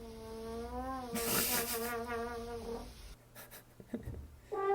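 Trombone holding a long note that dips and then wavers in pitch as the slide moves, stopping about three seconds in. A new trombone note starts right at the end.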